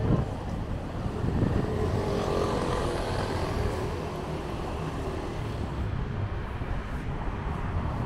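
Steady low rumble of city traffic, with a vehicle passing that swells in the middle and then fades.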